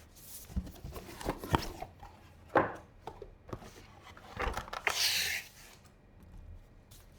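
Hands handling PC parts and packaging: a run of knocks and taps, one sharper knock about two and a half seconds in, then a brief rustle of packaging about five seconds in.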